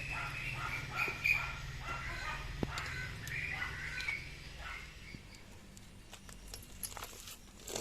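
A dog barking repeatedly in quick succession, the barks thinning out after about four seconds, over a low steady hum.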